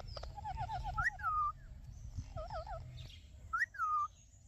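Pet green parrot calling: a quick warbling trill, then several short whistled chirps that rise and fall in pitch, the last about three and a half seconds in, over a low background rumble.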